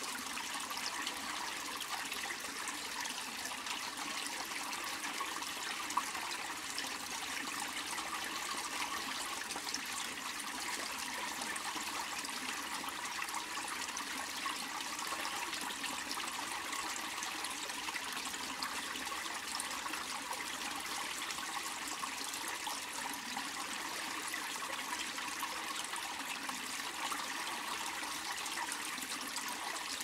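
Small forest stream flowing steadily over stones under a small stone bridge, the water sound carrying a slight reverberation from the stone structure.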